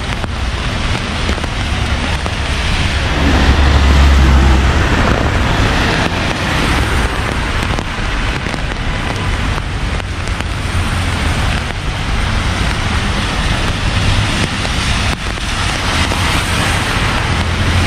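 Steady rain falling on a city street, with road traffic. A vehicle's low rumble grows loudest about three to five seconds in as it passes.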